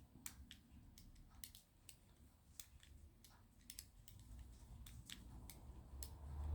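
Faint, irregular clicking of a Squire CP combination padlock's number wheel being turned round by thumb, two or three clicks a second. A low rumble of handling comes in near the end.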